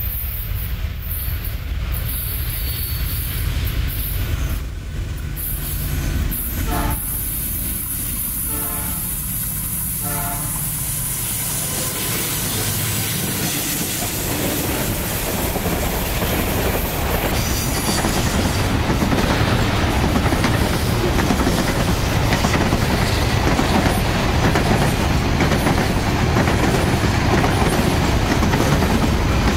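Diesel freight locomotives running toward and past at close range, their engines rumbling, followed by the freight wagons rolling by with steady clattering over the rail joints that grows louder from about halfway through.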